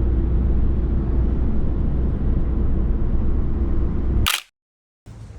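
Steady low rumble of road and engine noise inside a moving car. About four seconds in it ends with a short sharp burst and cuts to dead silence, after which a fainter, different background begins.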